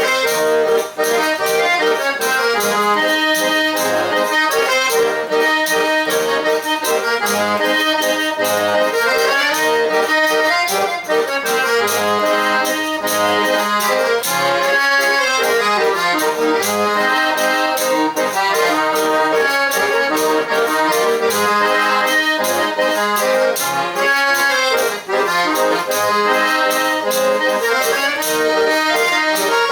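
Pé de bode, an eight-bass button accordion, playing a traditional tune without pause, with quick changes of notes and a steady beat.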